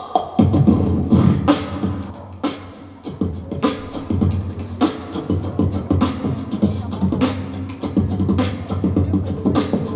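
Human beatboxing: a steady beat of sharp vocal snare-like snaps over a low hummed bass, with a brief drop in loudness about three seconds in.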